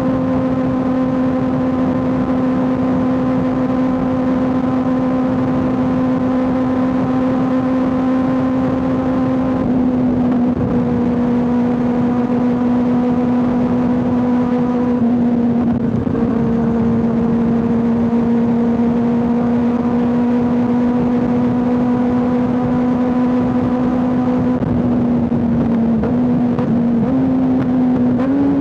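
Kawasaki ZX6R 636's inline-four engine running at a steady highway cruise, a constant high drone whose pitch eases down a little in a few small steps, over a steady rush of noise.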